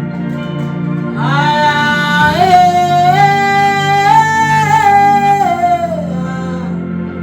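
Worship music: a voice singing long held notes without clear words, one note drawn out for several seconds, over a steady instrumental backing.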